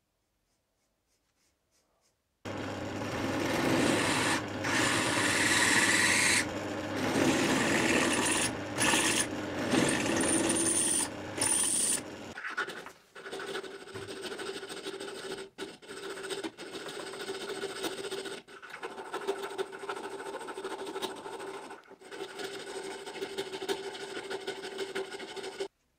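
Drill press boring through a small metal plate: loud, even motor and cutting noise that starts a couple of seconds in and stops about halfway. Then a hand file rasping in the drilled slot, quieter and steadier, with several short breaks, stopping just before the end.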